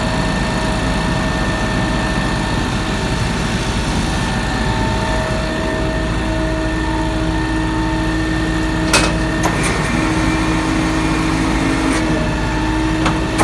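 Johnston street sweeper's engine running steadily, with a second steady hum joining about five seconds in and a few sharp clicks in the last few seconds.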